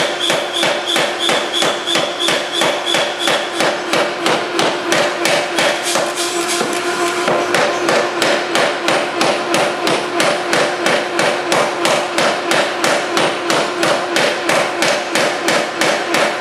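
3B Nazel forging hammer pounding a glowing stainless steel billet, its heavy ram striking in a rapid, even rhythm of about four blows a second. A steady ringing tone runs under the blows.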